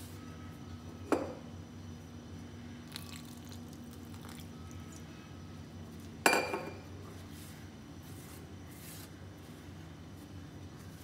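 Hands mixing and kneading flour dough in a glass bowl, with soft scraping of the dough and two sharp knocks against the glass, about a second in and about six seconds in; the second is louder and rings briefly.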